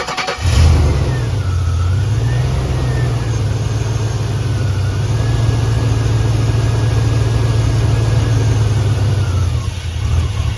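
2001 Chevrolet 5.3 L Vortec V8 finishing a crank, catching about half a second in on gasoline sprayed into the throttle body, running steadily, then dying near the end. It runs only on the sprayed fuel because the fuel pump is not delivering fuel pressure to the rail.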